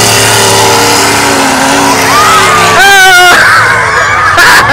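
Demolition derby cars' engines running loud and distorted. From about halfway, spectators shout and yell over them, with one sharp wavering cry about three seconds in.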